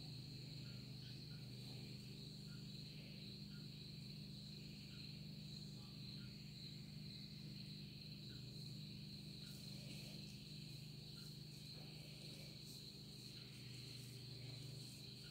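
Faint steady chirring of night insects, crickets, with a low steady hum beneath it.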